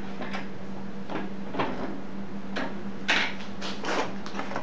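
Drill press running with a steady hum while a freshly sharpened twist bit bites into a galvanized steel electrical box: a string of short metallic scrapes and clinks, about two a second.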